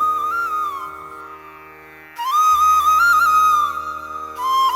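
Flute playing a slow melody of long held notes with small ornaments over a steady drone. The first phrase fades out about a second in, and a new phrase enters about two seconds in.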